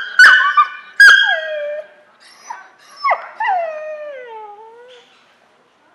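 A dog yips sharply twice, then whines in long cries that fall in pitch.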